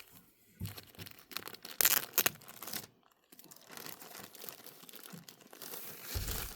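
Diamond painting kit packaging crinkling and rustling as it is handled, with a louder burst of crackling about two seconds in.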